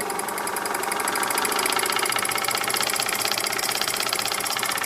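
Bowman PW201 model steam engine running on compressed air, exhausting and clattering in a rapid, even beat. It picks up a little over the first couple of seconds as the air pressure is raised from about 4 psi toward 10 psi, the engine still a little stiff.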